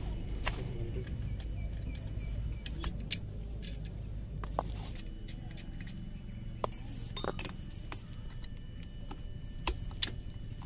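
Scattered short metallic clicks and clinks from hand tools and parts being handled at a TVS 50 moped's clutch and belt drive, over a steady low background hum.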